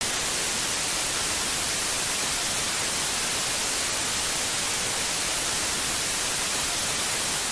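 Steady white-noise static hiss, like an untuned TV, laid under an intro title card as a sound effect; it starts abruptly and holds at an even level.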